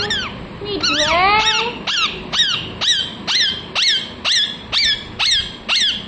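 Rose-ringed parakeet calling: a longer, wavering call about a second in, then a rapid run of short, sharp screeching calls, about two to three a second, each sweeping steeply down in pitch.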